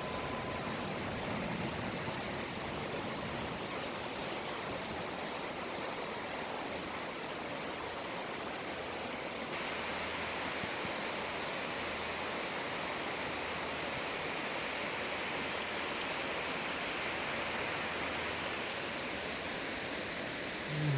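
Stream rushing steadily, running high with water after heavy rain. About ten seconds in, the rushing turns a little brighter and hissier.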